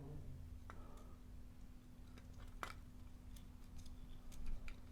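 A few faint, sharp clicks and taps from handling the plastic parts of an opened-up smoke alarm, over a faint steady hum.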